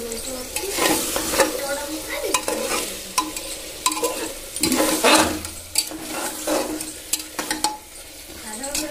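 Metal spatula scraping and stirring chicken pieces frying in oil and masala in an open aluminium pressure cooker, with a sizzle under irregular strokes against the pot. The meat is being fried down until the oil separates.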